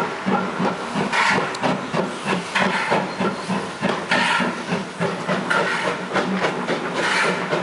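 Steam tank engine pulling away with a train, its exhaust chuffing in a steady run of beats, a couple to three a second, over a hiss of escaping steam.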